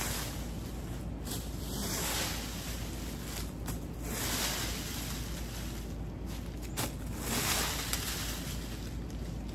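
Plastic leaf rake dragged through storm-downed leaves and leafy branches, scraping and rustling in strokes that come every two or three seconds.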